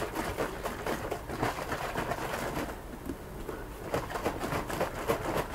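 A plastic gallon jug of water mixed with latex caulk and glitter being shaken hard by hand, the liquid sloshing and gurgling inside. It comes in two bouts, with a brief lull about three seconds in.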